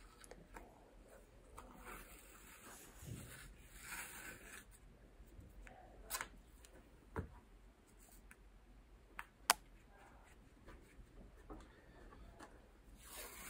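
Faint rasping of 3-inch elastic athletic tape being pulled off the roll and smoothed over a shoulder spica wrap, with a few sharp clicks and taps. The loudest is a single sharp click about nine and a half seconds in.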